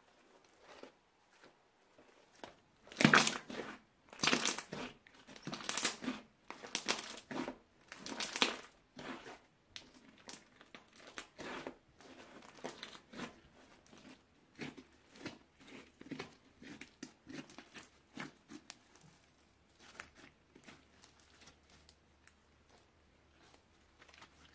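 Crunchy slime being squeezed and pressed by hand, giving off irregular crackling and crinkling, loudest a few seconds in and then softer and more scattered.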